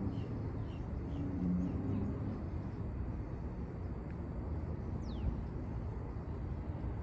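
Outdoor ambience: a steady low rumble, with small bird chirps in the first second or so and a single high, falling whistle about five seconds in.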